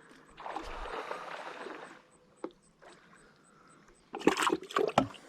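Water sloshing and splashing with handling noise while a just-caught small sun perch is dealt with, rising to a louder splash about four seconds in.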